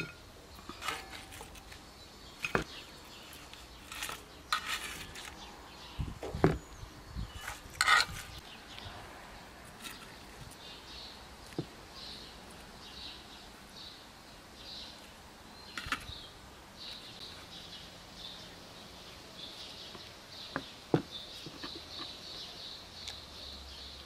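Scattered clinks and knocks of utensils against dishes, most of them in the first half. From about ten seconds in, a bird chirps over and over.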